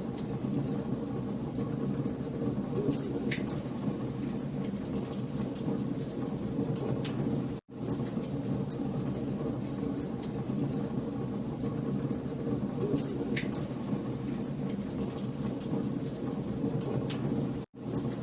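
Fire crackling in a fireplace: a steady low rush of flame with scattered sharp pops and snaps. The sound cuts out for an instant twice, about seven and a half seconds in and near the end.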